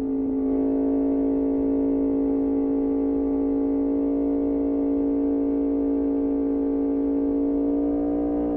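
Yamaha MT-10's crossplane inline-four engine through an Austin Racing exhaust, held at steady revs while riding: one steady droning note that does not change in pitch.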